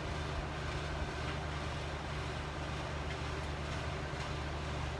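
Soft rain falling steadily, an even hiss with a few faint drip ticks, over a steady low rumble.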